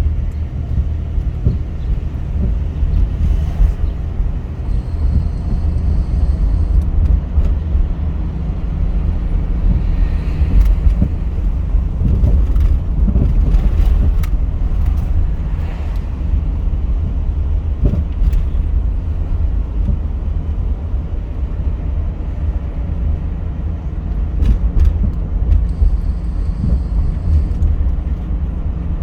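A car driving: steady low road and engine rumble, with scattered light clicks and knocks.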